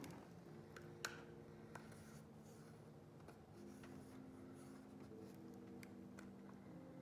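Faint scratching of a plastic pry bar worked along the seam of an HP Pavilion 15 laptop's bottom case, with a couple of small clicks.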